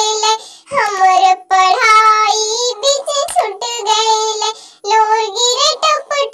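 A high-pitched, pitch-shifted cartoon-character voice singing a folk song, in phrases with short breaks between them.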